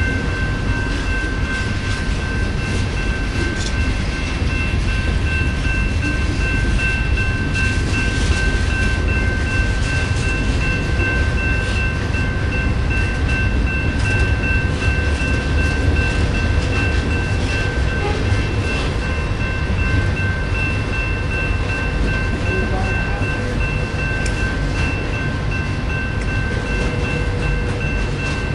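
Intermodal freight train cars rolling past: a steady low rumble of wheels on rail with scattered light clicks, and a steady high-pitched tone running over it.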